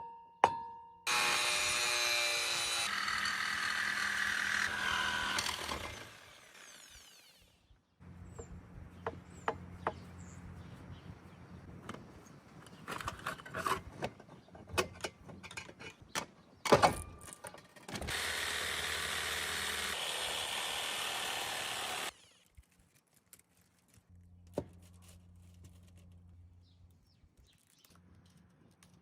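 A power tool cutting into a scrap electric motor in two runs of several seconds each: one about a second in, the other about two-thirds of the way through. Scattered metal knocks and clanks come between the runs.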